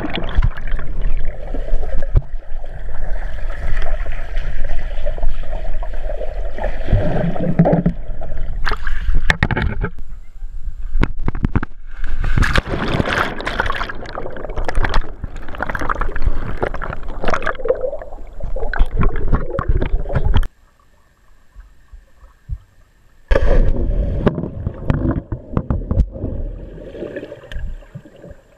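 Muffled rushing and bubbling water heard through a camera submerged in a swimming pool, with churning air bubbles. The sound drops away suddenly about two-thirds of the way through for a few seconds, then returns and fades near the end.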